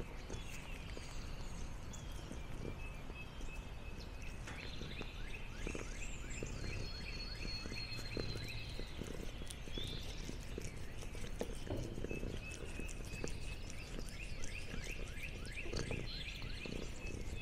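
Outdoor rural ambience: runs of short, high chirping calls repeated about four times a second, with a brief whistled note partway through, over soft rustling and light knocks.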